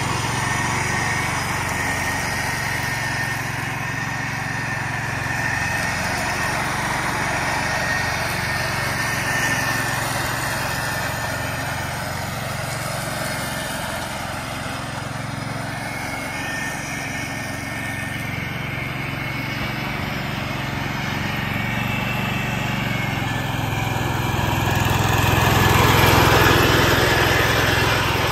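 1969 Ford 140 garden tractor's engine running steadily under load with its mower deck engaged, the blades mulching dry leaves. It grows louder near the end as the tractor comes close.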